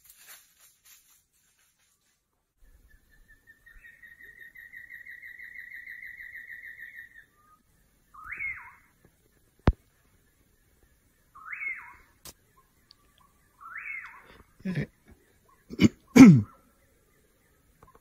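Animal calls: a rapid pulsed trill lasting about three seconds, then three short calls that rise and fall in pitch, with a single sharp click between them. Near the end come a few louder, lower calls.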